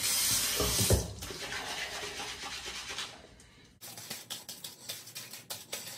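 Hands rubbing thick shampoo lather into short, wavy hair, a wet scrubbing sound in quick repeated strokes. A louder hiss comes in the first second.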